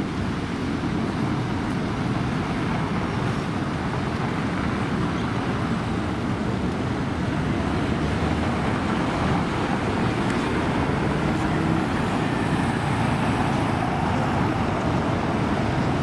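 Steady city road-traffic noise: a city bus and cars driving past, a continuous rumble with no distinct single event.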